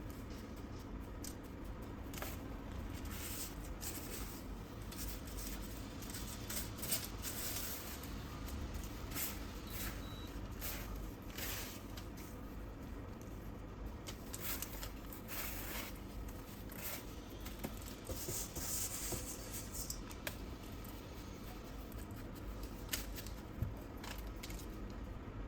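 Intermittent scraping and rustling from handling food and utensils while cooking, over a low steady hum.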